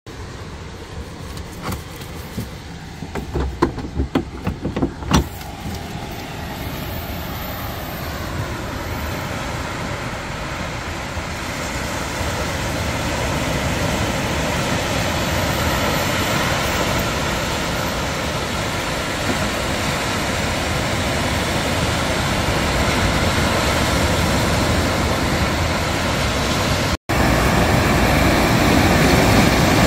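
Steady rushing of surf breaking on a sandy beach, blended with road traffic noise, growing slowly louder. A few sharp knocks sound in the first five seconds.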